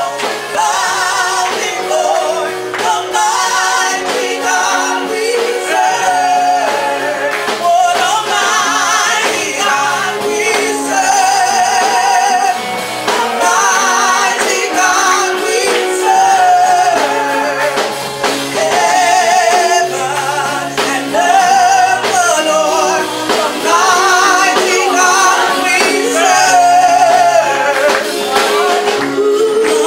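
Gospel music: a singer with a wavering vibrato over held bass notes and a steady beat.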